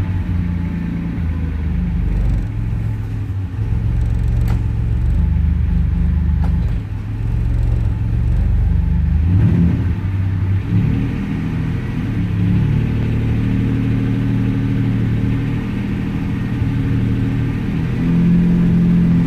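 Turbocharged 60-degree GM V6 running in gear with the truck up on a hoist while a newly fitted 4L60E automatic transmission is tried through its gears. The engine note steady but changing pitch in steps, with a short rise about nine seconds in.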